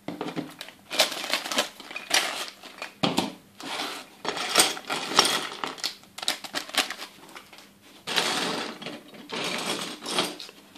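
A clear plastic bag crinkling while small hard plastic Playmobil pieces click and clatter as they are shaken out onto a table, with a longer stretch of rustling near the end.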